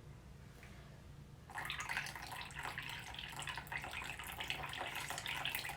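Coffee being poured, a steady stream of liquid that starts about a second and a half in.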